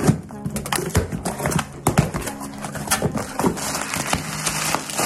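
Cardboard shipping box slit open with a box cutter and its flaps pulled back, then plastic bubble wrap handled: an irregular run of sharp clicks, scrapes and crinkles, the sharpest near the start and about two seconds in.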